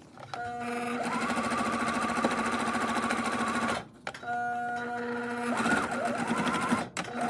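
Electric sewing machine stitching a zipper onto a t-shirt. The motor runs up to speed, stops about four seconds in, runs again, and halts briefly near the end before starting once more.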